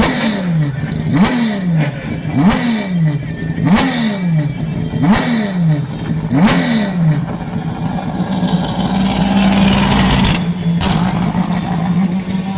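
Turismo Carretera race cars passing one after another on track, six engine notes each falling in pitch as a car goes by, about a second and a half apart. Then a steadier engine note with a rising rush of noise that cuts off suddenly near the end.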